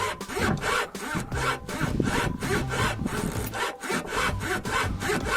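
Dry creaking and rubbing from the rubber stabiliser (anti-roll) bar bushings of a VW Polo GTI, in quick repeated strokes. It is the sign of a dry bushing rubbing on the bar, which silicone grease is meant to cure.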